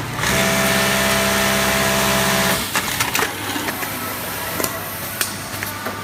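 Industrial lockstitch sewing head of an automatic hemmer running at speed for about two seconds, a loud steady pitched hum, then stopping abruptly. It is followed by scattered sharp clicks and knocks from the machine's mechanisms.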